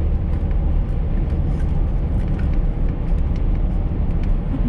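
Steady low road rumble of a car driving, heard inside the cabin, with scattered faint clicks over the top.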